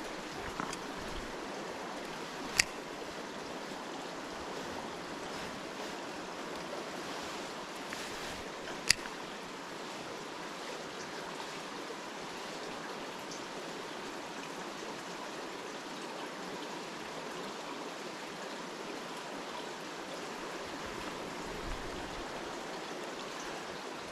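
A river's water rushing steadily, with two short sharp clicks standing out over it, the first a few seconds in and the second about nine seconds in.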